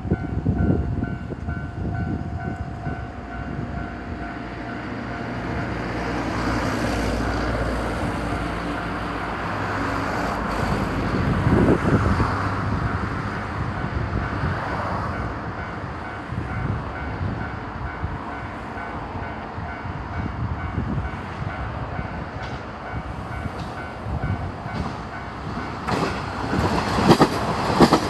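Railway level-crossing alarm ringing in a steady repeating pattern while a diesel train passes. The train's rumble swells around the middle, and wheels clack over the rail joints in the last few seconds.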